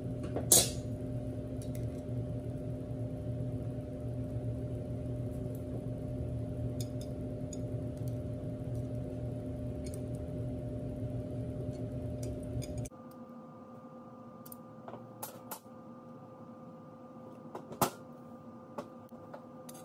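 A steady background hum with a few light metal clicks and taps of hand tools on the lathe tailstock's cast-iron parts. About two-thirds of the way through, the hum drops to a quieter, thinner tone, and a sharper click comes near the end.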